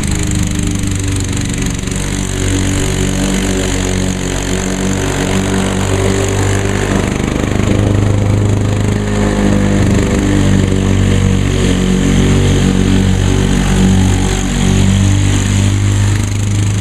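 A two-stroke Lawn-Boy walk-behind mower running under load while cutting grass, its engine pitch dipping and recovering as it works through the grass.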